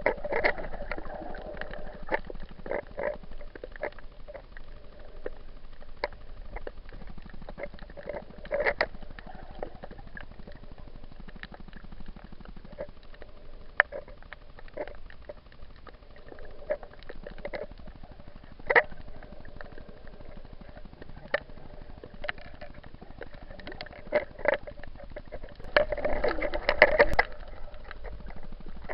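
Water sloshing and splashing against an action camera's waterproof housing during snorkelling, with a steady muffled hiss and many sharp clicks and knocks. A louder splashing burst comes near the end.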